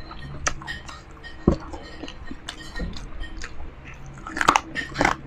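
A person chewing and biting into crispy fried pork close to the microphone, with scattered sharp crunches and a louder run of crunches about four and a half seconds in.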